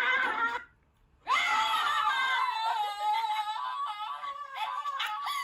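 A person's high-pitched scream, held for about four seconds with a wavering pitch, starting about a second in after a sudden short break; a voice cuts off just before it.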